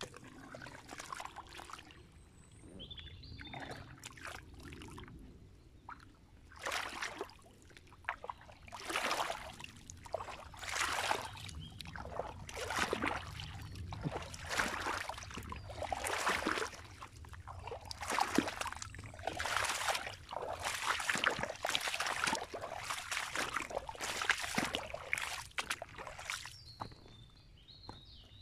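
Rubber boots wading through shallow muddy water, a splash with each step about once a second. The steps are softer in the first few seconds and die away near the end.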